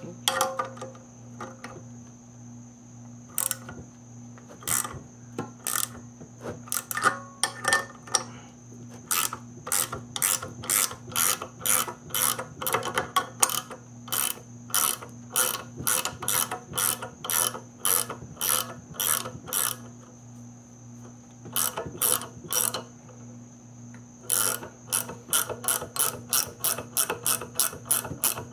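13 mm ratcheting combination wrench clicking as it turns the nut on an LS valve spring compressor's stud, in quick runs of sharp ratchet clicks broken by short pauses, one longer pause about three-quarters through. A steady electrical hum lies underneath.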